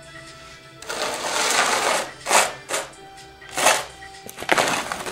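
Metal palette knife scraping and spreading gritty, sand-mixed texture paste across a canvas in several strokes: one long stroke about a second in, then a few short ones.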